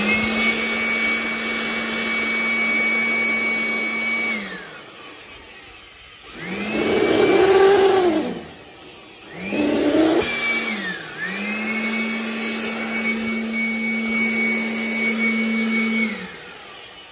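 Electric 220 V dust blower switched on and running with a steady whine, winding down after about four seconds. It is given two short bursts, then runs steadily again for about five seconds and spins down near the end.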